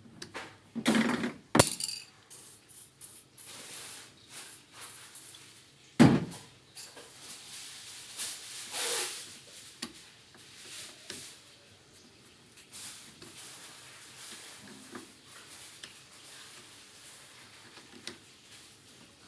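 Irregular clattering and knocking of hard objects being handled, with two sharp loud knocks, one near the start and one about six seconds in, and lighter clicks and rustling between.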